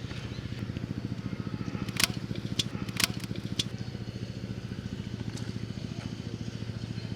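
A small engine running steadily with a fast, even chugging pulse. There are a few sharp clicks between about two and three and a half seconds in.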